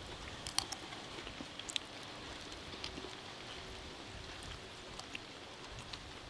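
Faint, irregular crackling and clicking as plastic spoons scoop a crushed potato-chip snack mix from paper plates and the chips are crunched, over a steady low hiss.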